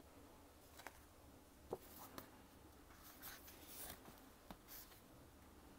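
Faint paper rustling and a few light taps as a picture book's page is turned by hand.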